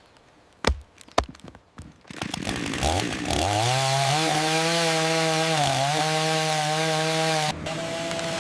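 Chainsaw: a few sharp clicks, then the engine winds up to a high, steady run about three seconds in, dips briefly, and abruptly settles to a slightly lower steady pitch near the end.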